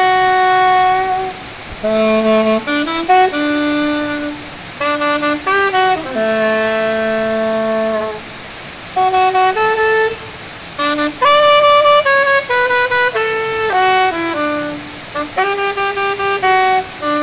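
Solo saxophone playing a slow melody: long held notes mixed with runs of quick short notes, with brief pauses between phrases.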